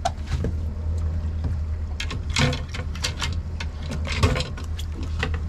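Water splashing in several quick bursts as a small barracuda thrashes at the surface while it is lowered on the leader to be released, the loudest splash a little past the middle. A steady low hum runs underneath.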